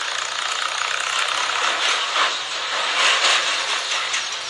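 Steady rushing hiss of wind blowing across a phone's microphone, swelling a little now and then.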